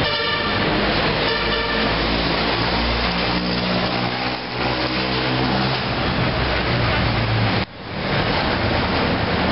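Street traffic: steady, loud road noise with a vehicle engine humming through the middle, and a few brief higher tones near the start. The sound drops out for an instant about three quarters of the way in.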